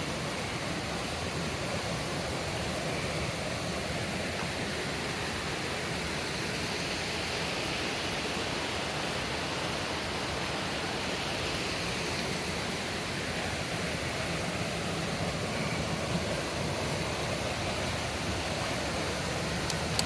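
Steady rushing of white water from a river running through a rocky ravine.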